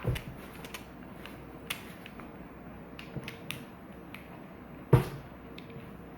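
Plastic pieces of a Puppet Cube V1 puzzle clicking and creaking as the last piece is pressed and forced into place, with a sharp loud click about five seconds in.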